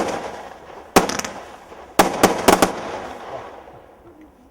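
Fireworks exploding: six sharp bangs, one at the start, one about a second later, then four in a quick cluster about two seconds in. Each has a rolling echo, and the sound dies away near the end.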